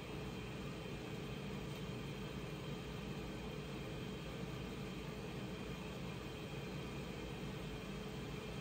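Steady low hum and hiss of kitchen background noise with a faint constant tone, unchanging throughout, with no distinct events.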